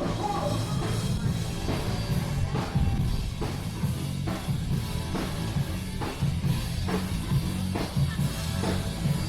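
Rock music with a drum kit and a heavy bass line, a drum hit landing a little more often than once a second.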